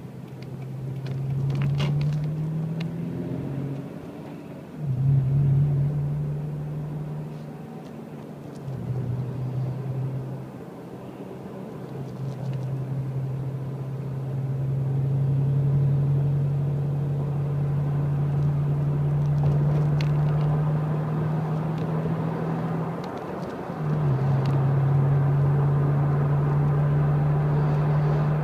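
A road vehicle's engine and tyre noise heard from inside the cabin while driving: a steady low hum that dips and picks up again a few times as the vehicle slows and speeds up, then holds steady.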